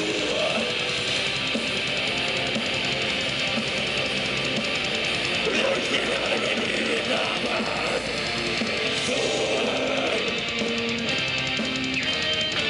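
Pagan metal band playing live: distorted electric guitars, drums and vocals at a steady, dense loudness.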